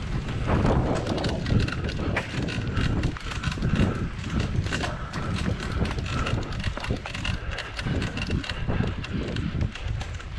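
Cyclocross bike rattling and clattering over a bumpy dirt course: many quick irregular knocks from the bike's chain and frame, with wind buffeting the microphone as a low rumble.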